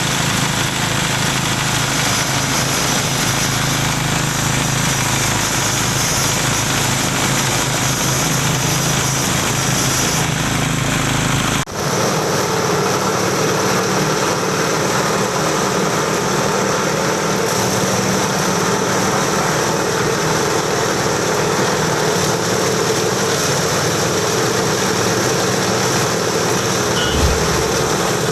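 Multifunction grinding mill for husks, corn cobs and dry leaves running loud and steady. About twelve seconds in the sound cuts off abruptly and carries on with a different tone, and a single short thump comes near the end.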